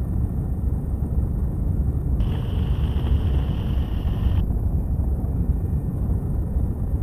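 Helicopter cabin noise through the crew intercom: a steady low drone from the rotor and turbine. About two seconds in, a radio or intercom microphone is keyed for about two seconds and adds a higher hiss with a thin steady tone, but no words.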